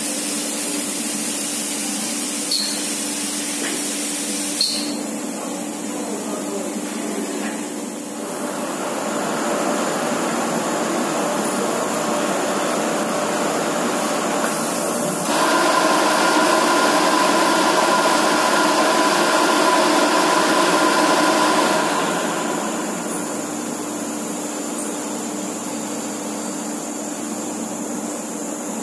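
Big bag filling machinery running: a steady hiss and hum with a few light clicks in the first five seconds. For about six seconds past the middle it grows louder, with several steady whining tones over the hiss, then drops back.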